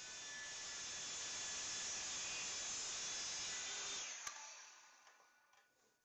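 Table saw running steadily, then switched off with a click about four seconds in and spinning down to silence.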